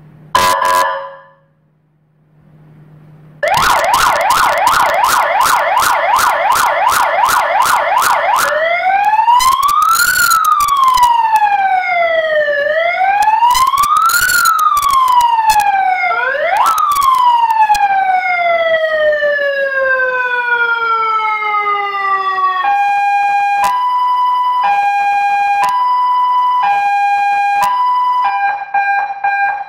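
Seven-tone electronic siren with a PA function, driving a high-power alarm loudspeaker and stepping through its tones. First a short horn-like blast, then a fast pulsing yelp, then a slow wail that rises and falls twice. Then one rise into a long falling sweep, and last a two-tone high-low alternating about once a second.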